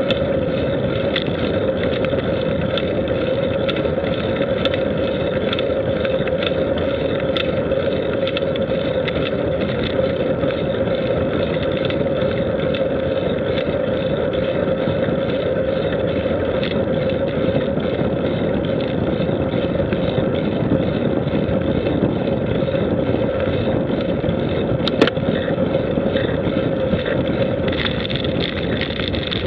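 Steady running noise of a vehicle travelling along a paved road, heard from a camera mounted on it: an even drone with a constant hum and a few faint clicks.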